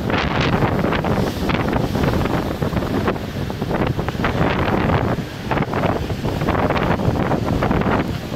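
Storm wind buffeting the microphone in heavy gusts, over the rush of rough sea waves surging against the seafront.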